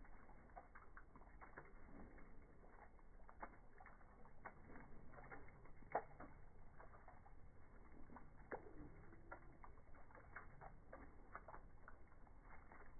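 Faint, irregular drips of meltwater from thawing icicles, a scatter of soft taps with one sharper drip about six seconds in.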